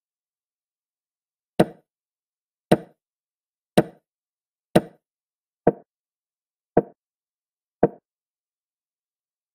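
Chess app's piece-move sound effects: seven short clicks about a second apart, one for each move played. The first four, which are captures, sound sharper and brighter than the last three.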